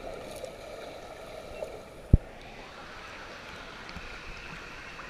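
Muffled water noise heard through a submerged action camera's housing, with one short low thump about two seconds in; a moment later the camera breaks the surface and the sound opens up into open-air water noise.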